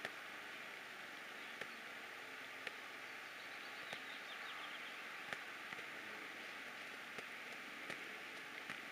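Faint steady outdoor background hiss with scattered light ticks, and a short run of faint high chirps about three and a half seconds in.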